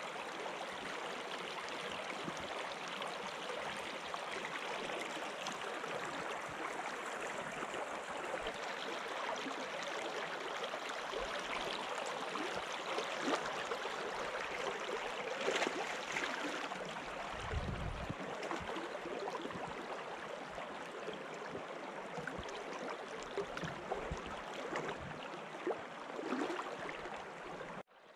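River water rushing steadily over a shallow current, with a few low thumps, the strongest about two-thirds of the way through.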